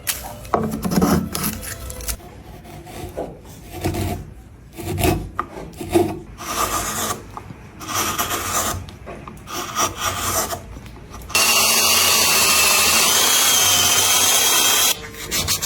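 Wood being shaped by hand with a rasp or file: irregular scraping strokes. About eleven seconds in, a loud, steady hiss with a wavering high whine starts suddenly and lasts about three and a half seconds, then stops.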